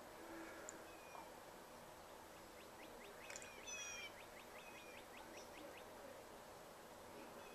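Faint background of small birds calling, with a quick trill of rapid short notes and a few clear whistled notes about three seconds in.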